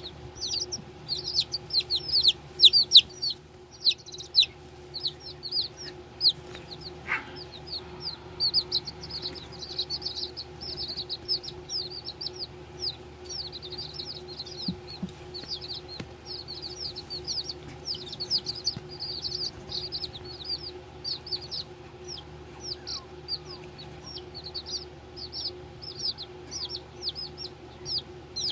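A group of baby chicks peeping nonstop: many short, high cheeps, each falling in pitch, several a second and overlapping. A steady low hum runs underneath.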